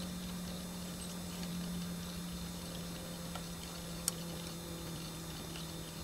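River water running and lapping, under a steady low hum that sinks slightly in pitch, with a single sharp click about four seconds in.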